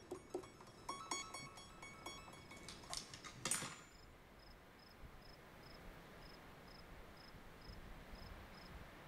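Electric guitar picking short, quick notes, ending in one louder strummed chord about three and a half seconds in. Then a cricket chirping faintly and steadily, about two or three chirps a second.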